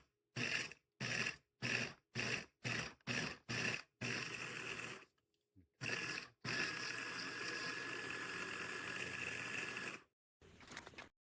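Electric immersion blender motor switched on in short pulses, about two a second, then run steadily for a few seconds with a steady whine, and switched off.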